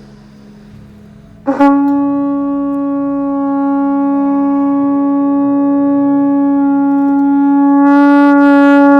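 Conch shell (shankh) blown in one long, steady note that starts about a second and a half in and grows slightly louder and brighter near the end.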